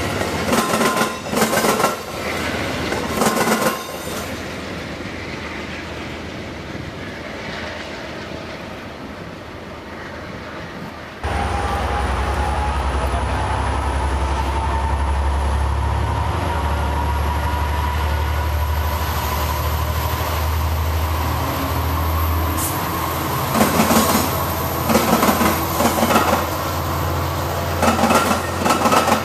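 Passenger cars rolling past with wheels clicking over rail joints, fading away. About 11 s in, a Metra EMD F59PH diesel locomotive pulls out with a loud low engine drone and a slowly rising whine. Near the end its bi-level coaches clatter past over the rail joints.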